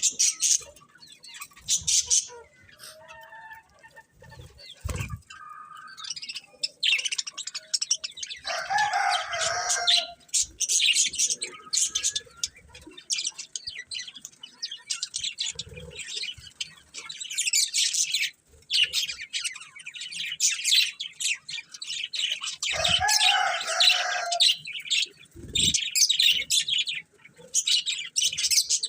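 Budgerigars chattering with rapid, high-pitched chirps, with louder, fuller calls at about nine and twenty-three seconds in. A few short low thumps are heard among the chatter.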